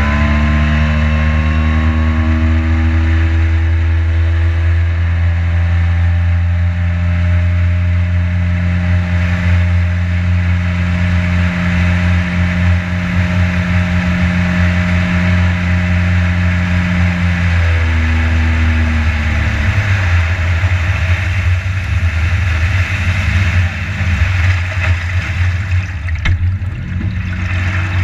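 Boat motor running under way, with water and wind rushing past. Its pitch climbs at the start, holds steady, then drops back about two-thirds of the way through as the boat slows.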